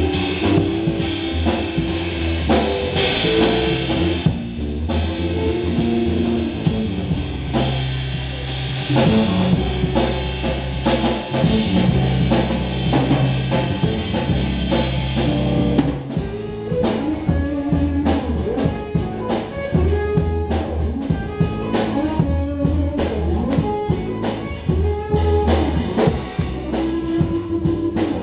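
Live rock trio of guitar, bass guitar and drum kit playing an instrumental passage, loud and continuous. About halfway through, the dense high wash thins out and the drum hits stand out more.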